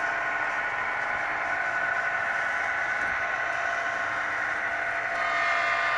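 Model diesel locomotive running through a track helix with a steady hum. About five seconds in the hum grows a little louder and fuller.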